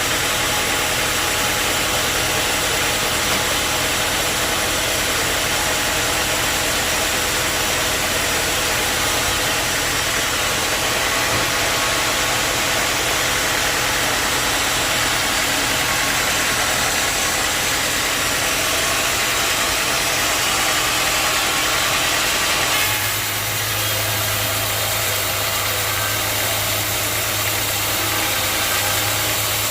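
Sawmill machinery running: a steady engine-like drone with a continuous hiss, its tone shifting abruptly about three-quarters of the way through.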